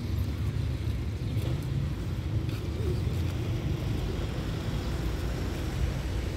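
Steady low rumble of ambient background noise, without a distinct event.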